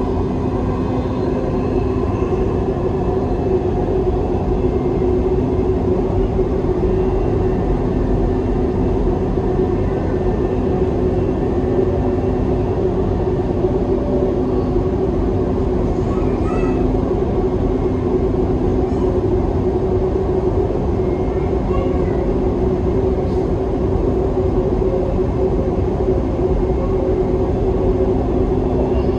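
Dubai Metro train running between stations, heard inside the car: a steady rumble of wheels on the track with a constant low hum.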